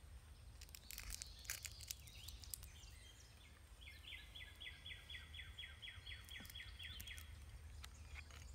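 Quiet outdoor ambience with a low rumble and a few soft clicks from hands handling yarn at the spinner. About four seconds in, a faint rhythmic chirping call of about five chirps a second starts and runs for about three seconds.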